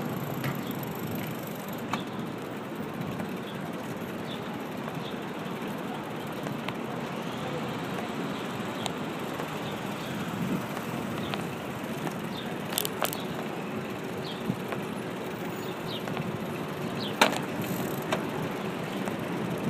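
Street noise heard from a moving bike-share bicycle: a steady rush of city traffic and riding noise, with a few sharp clicks about two-thirds of the way through.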